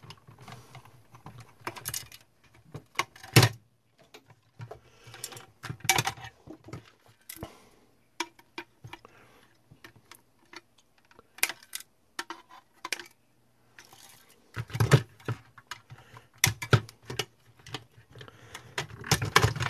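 Irregular plastic clicks, knocks and metal tool clatter as a battery charger's plastic case and cord strain relief are pried apart with a screwdriver and pliers. The clicks come in scattered clusters, heaviest about three seconds in and again near the end.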